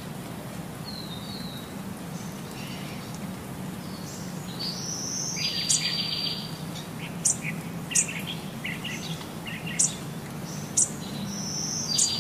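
A small songbird singing: a high whistled note running into a rapid trill, repeated about every six seconds, with short sharp high chirps in between. A faint low steady hum lies underneath.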